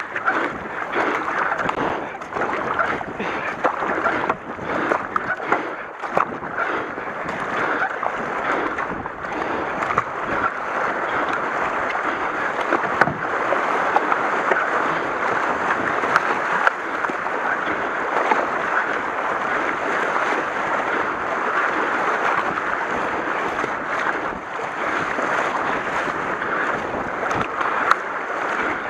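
Shallow river water rushing over riffles around a K1 racing kayak, with paddle blades splashing in and out, the splashes most distinct in the first half.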